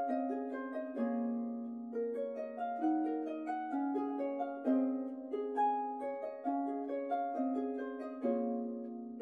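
Outro music: a plucked-string tune in quick rolling arpeggios, each note struck and fading, over a slowly changing bass note.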